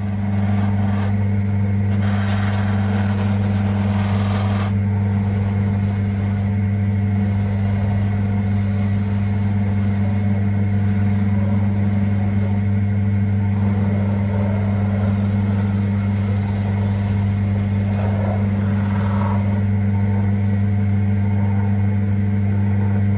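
Cobbler's finishing machine running with a steady electric motor hum, as a studded Dainite rubber sole is pressed against its spinning wheels; a harsher grinding noise rises over the hum from about two to five seconds in and again from about fifteen to twenty seconds in.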